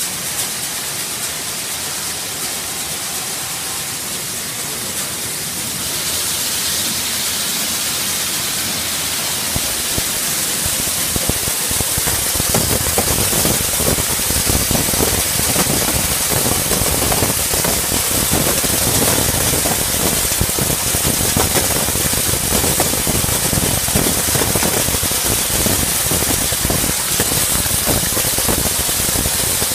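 Steady hiss of a bean color sorter running. About a third of the way in, a dense rattle of red beans pouring from its outlet chute into a plastic bucket builds up and carries on.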